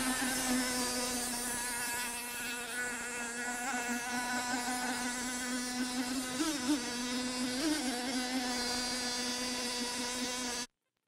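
Radio-controlled hydroplane's motor running flat out as a steady, high-pitched buzz, its pitch wavering briefly twice in the second half. It cuts off abruptly near the end.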